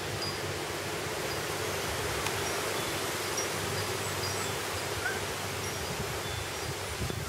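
Outdoor ambience: a steady rustling hiss with a few faint, short high chirps scattered through it.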